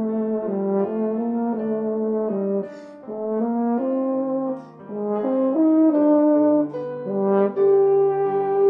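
Euphonium playing a melody note after note, with piano accompaniment beneath it; the sound dips briefly twice, about three seconds and four and a half seconds in.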